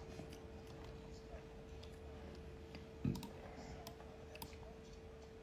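Computer mouse clicking a few times, scattered and light, with one dull thump about three seconds in, over a steady faint hum.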